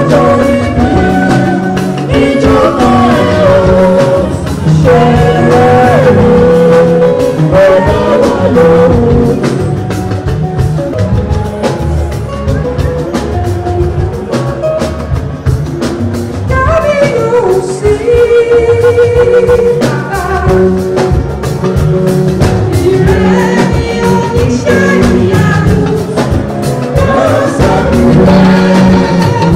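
A solo voice singing a gospel song over a live band with a steady beat.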